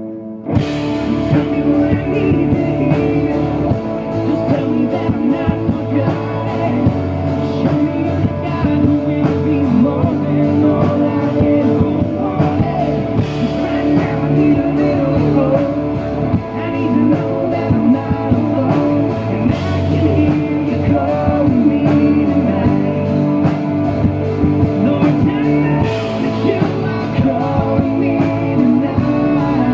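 Live pop-rock band playing through a PA: a male lead singer over electric guitars, bass and a drum kit. The full band comes in about half a second in after a few held notes.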